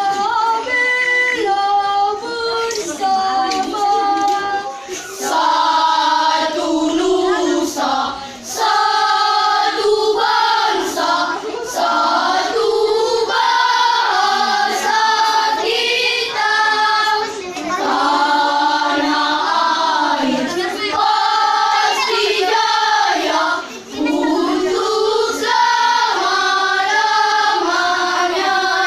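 Children's choir singing, voices holding long notes, with brief pauses between phrases.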